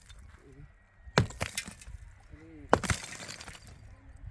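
Two sharp blows a second and a half apart, the second followed by a brief crunch of something breaking apart.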